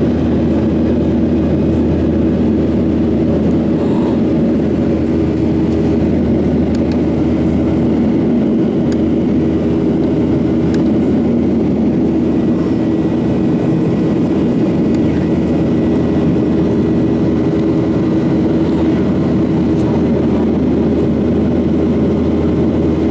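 Boeing 737-800 cabin noise in the climb after takeoff: the CFM56 jet engines and rushing air make a constant drone with a steady low hum through it.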